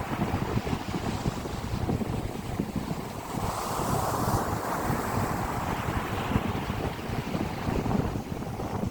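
Wind blowing on the microphone: a continuous low rumble with a rushing noise that swells a little about halfway through.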